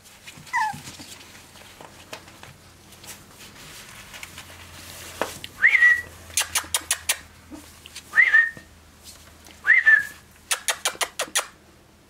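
A person whistling short rising notes, about one every two seconds, to call the puppies' attention, with two quick runs of sharp clicks between the whistles.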